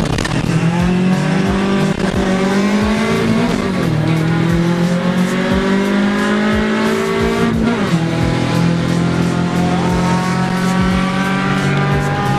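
Car engine pulling hard through the gears: the pitch climbs steadily in each gear and drops sharply at the shifts, about one every four seconds, with a shift just after the start, two more in the middle and another at the end.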